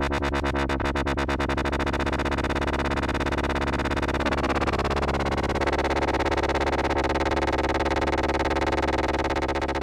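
Behringer MonoPoly analog synthesizer holding a low, buzzy note with a fast rhythmic pulsing, its tone sweeping about four seconds in.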